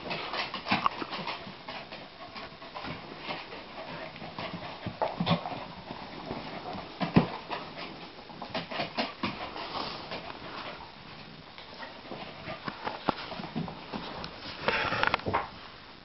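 Two dogs play-fighting on a wooden floor: scuffling, with irregular clicks and knocks from claws and paws and several dull thumps as they bump together. A louder, rougher burst lasting about a second comes near the end.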